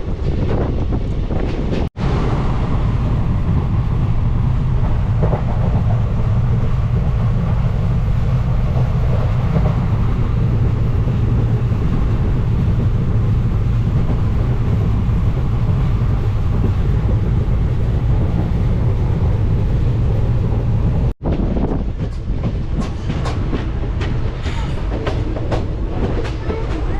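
Passenger train coach running at speed: a steady heavy rumble of wheels and bogies on the track, breaking off for an instant twice. In the last few seconds it turns to a quick, irregular clatter of wheels over rail joints.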